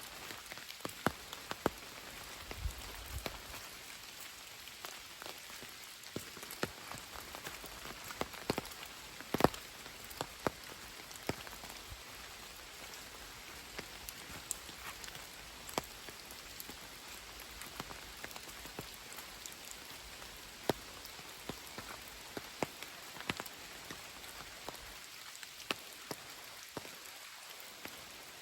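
Steady rain falling, a constant patter with louder single drops ticking sharply at irregular moments, the loudest about a third of the way in.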